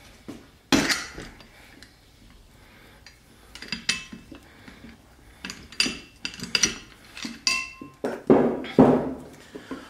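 Steel bar clinking and knocking against a harmonic balancer puller as its screw is turned to draw the flywheel off an air compressor pump's crankshaft: scattered metal clinks, a few ringing briefly, busier and louder in the last few seconds.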